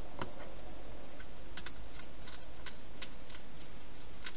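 Wild hedgehog eating from a bowl inside a plastic feeding box: irregular small clicks and crunches of chewing, with a soft knock just after the start, over a steady hiss.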